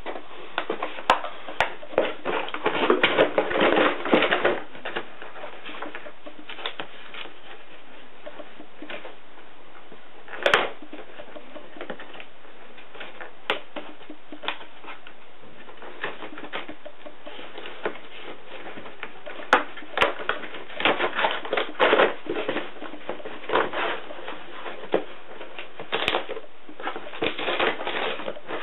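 Cardboard packaging and its plastic tie-down tabs being handled and worked loose: bursts of rustling and scraping with sharp clicks. It is busy for the first few seconds and again through the last third, with only scattered clicks in between.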